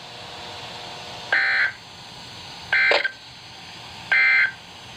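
Emergency Alert System end-of-message signal: three short bursts of SAME digital data, buzzy electronic screeches about a second and a half apart, marking the end of the broadcast warning.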